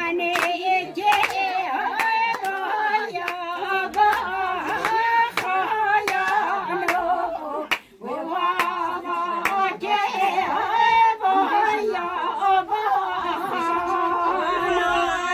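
A voice singing a slow song with long, wavering held notes, breaking off briefly about halfway, with scattered short sharp clicks.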